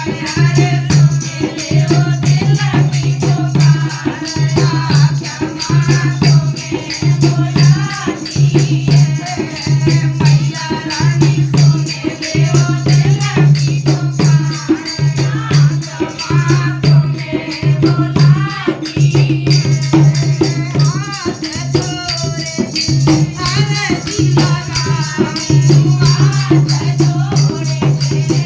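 Hindi devotional song (bhajan) sung to a steady beat, with rattling percussion running through it.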